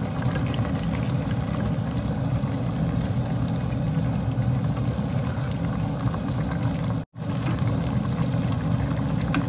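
Pot of chicken soup with misua noodles at a boil, bubbling steadily while being stirred with a wooden spatula. The sound cuts out briefly about seven seconds in.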